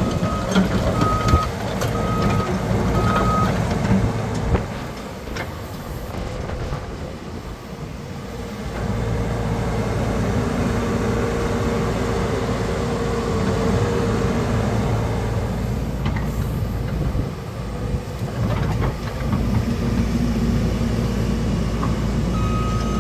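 JCB JS131LC tracked excavator's diesel engine running while the upper body slews round, with a steady hum and a few sharp knocks a few seconds in. A warning alarm beeps about once a second at the start and starts again near the end.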